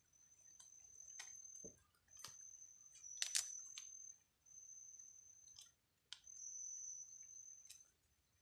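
An insect's high, steady trill, repeating in stretches of about two seconds with short breaks, with scattered sharp clicks, the loudest about three seconds in.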